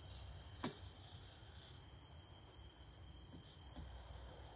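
Faint, steady high chirring of insects such as crickets, with a single click about two-thirds of a second in.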